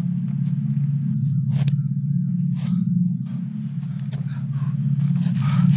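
A steady low droning hum with a fast flutter, with scattered short crackles over it.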